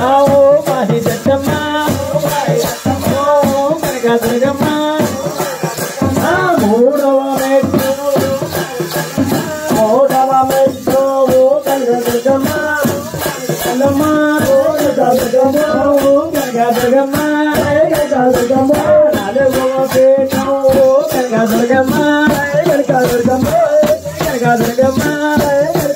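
Loud Telugu devotional folk music for Durgamma: a wavering melody line over a fast, steady rattle of shaker-like percussion.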